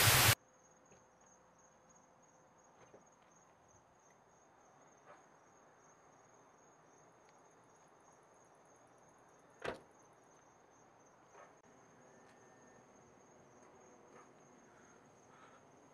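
Faint steady chirring of crickets at night, with one sharp knock about ten seconds in. Music cuts off abruptly just after the start.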